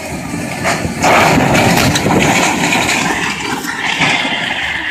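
Loud rushing and crackling of storm wind buffeting the vehicle and the microphone near a tornado, jumping sharply louder about a second in.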